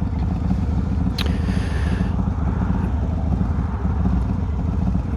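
Harley-Davidson V-twin motorcycle engine running steadily, heard through a helmet-mounted mic with a furry windscreen, with wind hiss over it. About a second in there is a brief click and a short burst of hiss.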